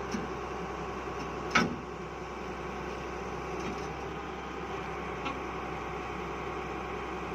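Tata Hitachi 200-class hydraulic excavator's diesel engine running steadily, with one sharp knock about a second and a half in and a couple of faint clicks.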